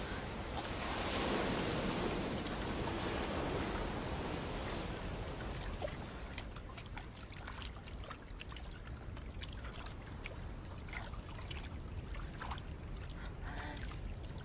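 Sea water lapping and sloshing around floating debris, swelling over the first few seconds, then settling into scattered small splashes and drips.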